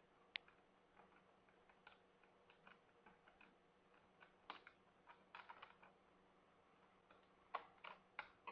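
Faint, irregular small metallic clicks and ticks of lock-picking tools working the wafer-style lock of a ThinkPad docking station, with a quicker cluster of louder clicks near the end.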